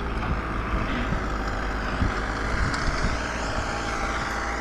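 A John Deere compact tractor's diesel engine running steadily as the tractor moves forward through deep snow.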